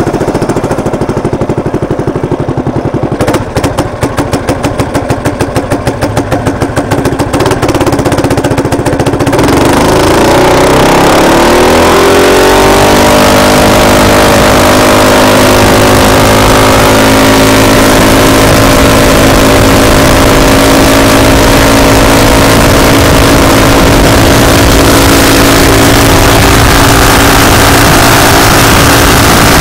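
Performance-built Predator 224cc single-cylinder minibike engine idling with a fast, even putter. About nine seconds in it revs up as the bike pulls away, rising in pitch over a few seconds, then holds a steady higher speed with wind rushing over the microphone.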